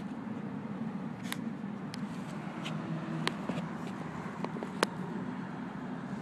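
Steady low background rumble with a handful of short sharp clicks and ticks as a dog roots with its nose in the soil of a flowerpot; the sharpest click comes a little before the end.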